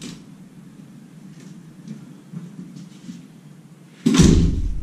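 Quiet room with a few faint knocks, then about four seconds in a sudden loud thump followed by a low rumble.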